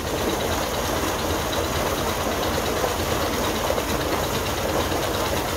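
Diesel engine of a 'Peter' tubewell running steadily with a fast, even beat as it pumps, along with pumped water gushing from the outlet into an irrigation channel.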